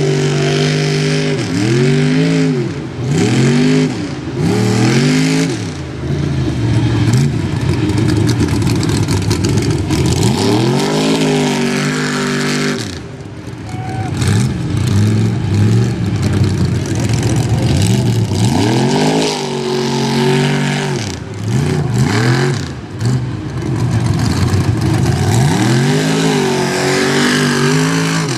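Mega truck's big engine revving hard in repeated bursts, its pitch swooping up and falling back with each throttle stab, settling to a lower steady note for stretches in between.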